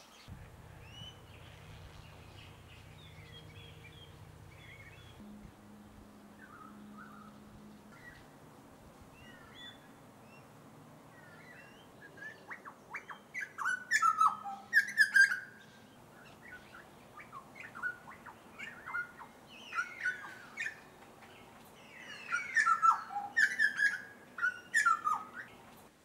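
Grey butcherbird singing: scattered faint notes at first, then loud phrases of quick piping and rougher notes in the second half. A low steady hum lies under the first few seconds.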